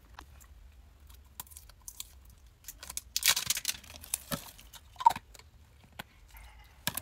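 Perfume-mist packaging being handled and opened: scattered small clicks and rustles, with a short burst of crinkling and tearing about three seconds in.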